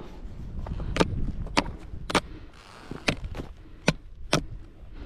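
A series of sharp clacks from skis on hard, rutted snow, about one every half second to a second, over a low rumble of wind.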